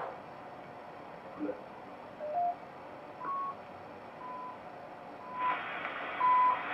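Shortwave receiver audio while it is stepped in frequency onto the CHU time-signal station: short beeps about once a second whose pitch shifts with each tuning step and settles at about 1 kHz. Band hiss comes up about five and a half seconds in as the station comes in.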